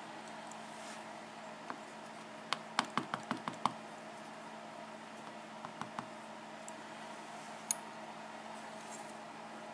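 Small metal padlock parts clicking and tapping as they are handled: a quick run of about six sharp clicks about two and a half seconds in, then a few fainter ones later.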